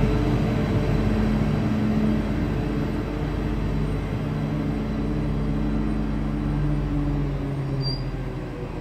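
Stadler diesel railcar moving slowly alongside the platform, its engines giving a steady hum that shifts a little in pitch and slowly fades. A brief high squeak near the end.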